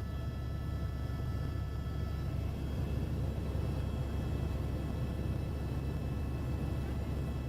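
Helicopter in flight heard from inside the cabin: a steady low drone of rotor and engine, with faint thin whining tones above it.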